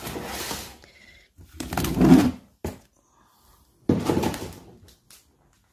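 Kitchen drawers sliding open and shut: three sliding sounds with a short knock between them, the loudest about two seconds in.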